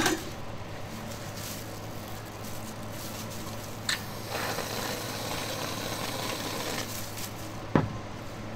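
Steady low hum of a small food stall with handling noise: a click about four seconds in, a few seconds of soft rustling as whipped cream is piped from a plastic bag onto a crepe, and one sharp knock near the end.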